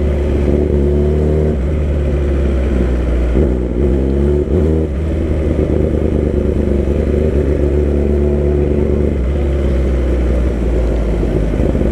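Kawasaki ZX-10R's inline-four engine running at a steady speed, with a brief rise and fall in pitch a few seconds in.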